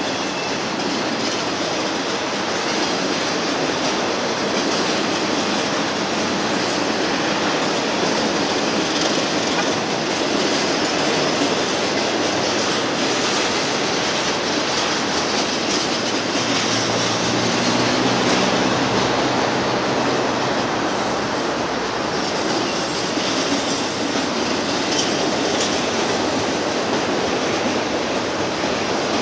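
Union Pacific double-stack intermodal train's loaded container well cars rolling past: a steady, loud noise of steel wheels running on the rails.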